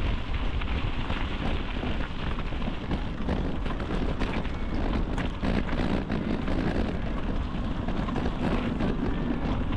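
Wind buffeting the microphone of a moving bicycle, steady throughout, with rumble and small knocks from the bike rolling along the trail.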